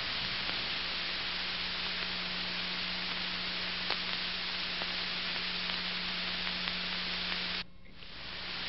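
Steady hiss and a low hum from an old film soundtrack, with no distinct event in it. The noise drops out briefly near the end and fades back in.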